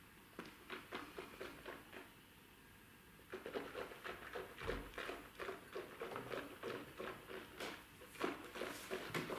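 Wet mouth sounds of whisky being tasted: quick lip-smacking and tongue clicks as a sip is worked around the mouth, growing busier and louder after about three seconds.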